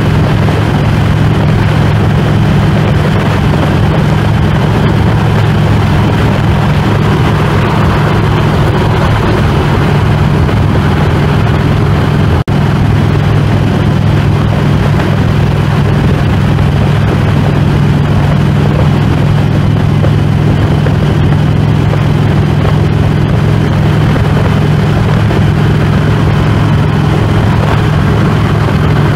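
Harley-Davidson Road King's V-twin engine running steadily at highway cruising speed, mixed with heavy wind rush on the microphone. There is a brief break about twelve seconds in.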